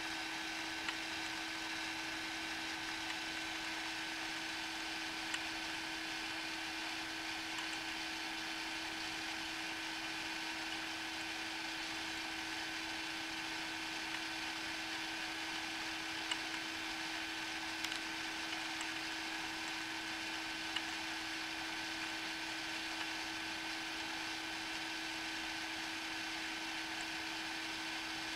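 Small electric motor of a rotating display turntable running with a steady hum and whine, with a few faint ticks.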